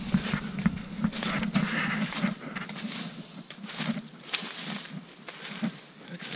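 Footsteps crunching and rustling through dry fallen leaves, an uneven run of crackles that thins out near the end.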